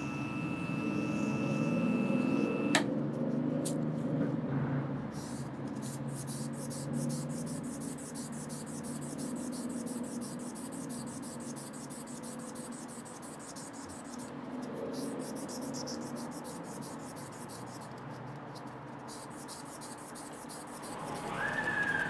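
Wood lathe spinning a palo santo rosewood pen blank while an abrasive pad and then a cloth are rubbed against it, giving a steady hum with a scratchy rubbing sound. A high steady whine stops abruptly with a click about three seconds in.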